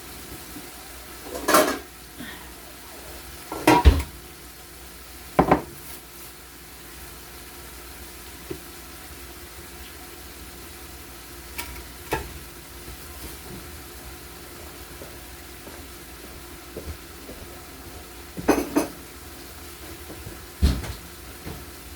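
Food sizzling quietly and steadily in an enamel skillet, with about six separate knocks and clatters of pans and dishes being handled; the loudest knock comes about four seconds in.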